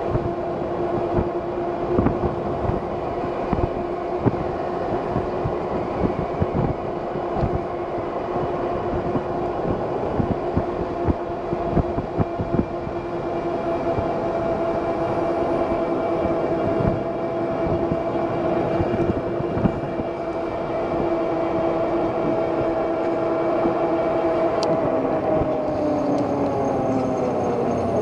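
Lectric XP e-bike's rear hub motor whining at a steady pitch under way, with wind gusting on the microphone. Near the end the whine falls in pitch as the bike slows.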